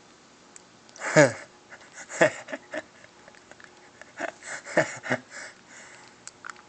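Baby making short breathy vocal sounds with her mouth open as she works her tongue: three louder ones, each sliding down in pitch, with small mouth clicks and softer sounds between.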